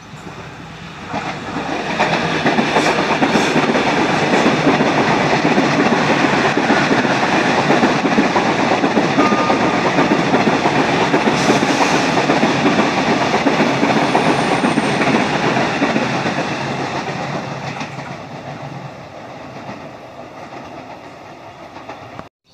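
KRL Commuterline electric multiple-unit train passing close by at speed. Its noise swells about a second in, stays loud with a few sharp knocks, then fades away over the last few seconds.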